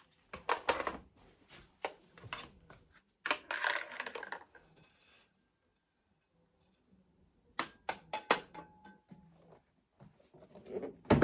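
Henry vacuum cleaner accessories being handled and set down: several bursts of clicks, knocks and rustling, with a quiet pause near the middle.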